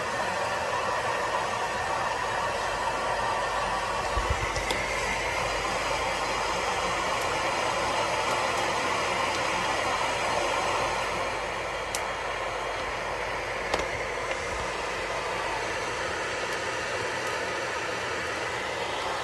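Steady rushing machinery noise with a few faint clicks.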